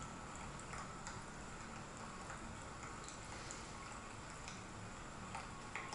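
Faint steady rain with scattered drip clicks, one a little louder near the end, played through a phone's speaker.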